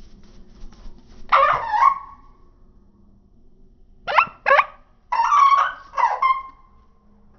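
Short, pitched animal calls in three groups: one call about a second in, two quick sharp ones near the middle, then a longer run of calls near the end.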